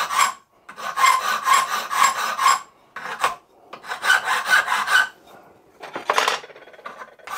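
Hand file rasping over an aluminium casting held in a vise: runs of quick back-and-forth strokes with short pauses between them, dressing the edge to blend it in. A brief handling clatter about six seconds in.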